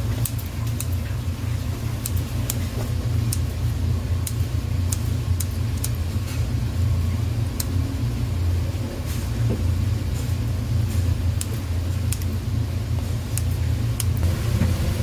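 Steady low hum of machinery running in a rice-cake workshop, with scattered sharp clicks every second or so.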